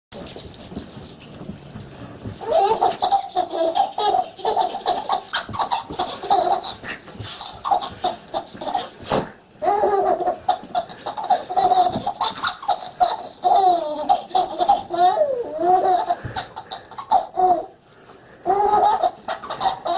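A baby laughing in rapid repeated bursts, starting about two and a half seconds in, with brief pauses about nine and a half and eighteen seconds in.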